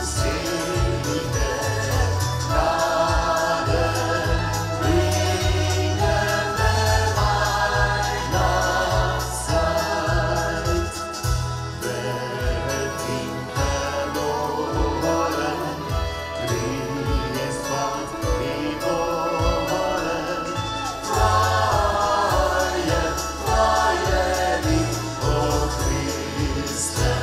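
Music with a choir singing over a bass line that steps from note to note.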